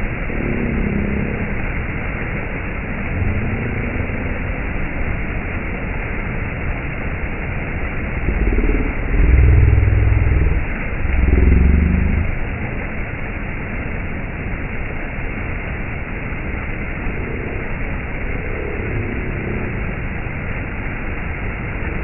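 Small stream running steadily as it splashes down low rock ledges. Twice, around nine and eleven seconds in, a louder low rumble with wavering tones rises over the water and fades.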